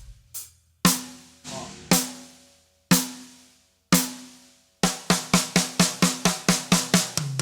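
Acoustic drum kit played loosely, letting the sticks rebound without forcing them: ringing single strokes about once a second, then about five seconds in a quick fill of even strokes, about six a second, stepping down in pitch toward the end.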